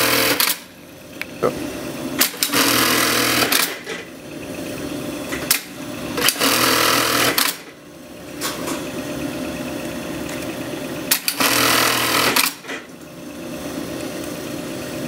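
Atlas AT1850-42H high-speed bartacking sewing machine stitching bartacks back and forth on heavy nylon webbing: one burst of rapid stitching ends just after the start, then three more follow, each a little over a second long. Between the bursts the machine runs more quietly, with a few sharp clicks.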